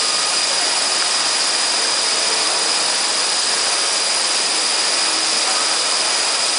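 DMTG VDW500 vertical machining center running: a steady hiss with a constant high whine over it, unchanging throughout.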